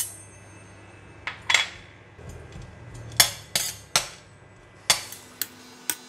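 A metal utensil clinking and scraping against a stainless steel wok while stirring dried shrimp in a little oil: a string of sharp, irregular clinks, roughly one every half second to a second.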